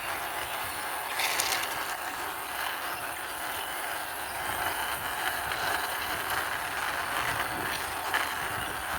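Wheels of a hand-pushed toy car rolling along, a steady rolling noise with a sharper click about a second in and another near the end.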